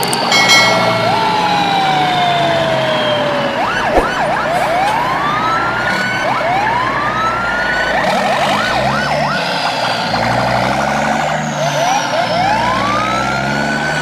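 Emergency-vehicle siren: long rising wails alternating with quick up-and-down yelps, over a low engine drone.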